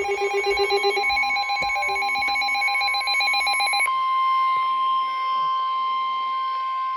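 NOAA Weather Radio alert tones from weather radio receivers. For about four seconds several electronic tones warble in rapid pulses; then a single steady warning tone near 1 kHz (the 1050 Hz weather-radio alarm tone) sounds for about three seconds. This announces a new severe thunderstorm warning.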